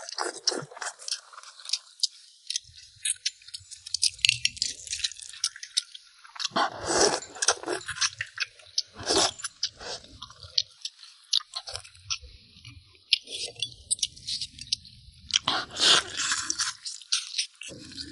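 Close-up eating of braised lamb ribs and radish: chewing and biting, with wet mouth sounds and quick crunchy clicks throughout.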